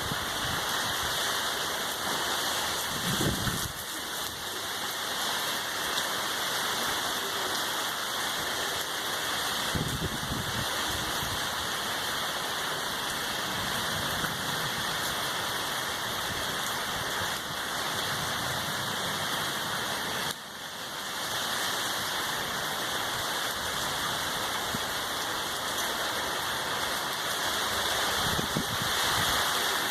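Heavy rain falling in a steady, dense hiss, dipping briefly about two-thirds of the way through.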